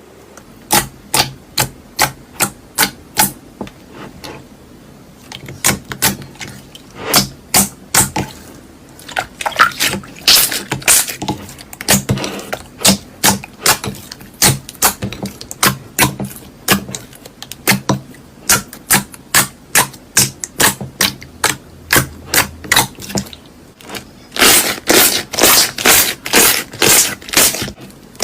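Clear slime being pressed and squeezed by hand, giving a steady series of sharp clicks and pops, about two to three a second, with a faster, louder run near the end.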